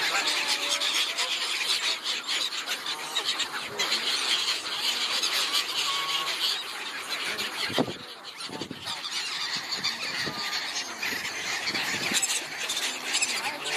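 Many waterbirds on a lake calling at once: a dense, continuous din of overlapping calls with no pauses.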